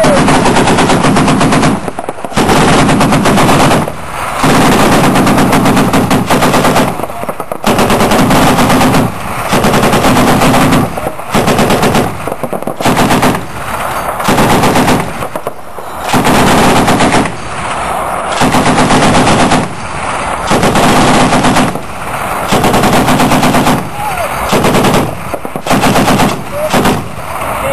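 M2 Browning 12.7 mm (.50-calibre) heavy machine gun firing in many short bursts with brief pauses between them.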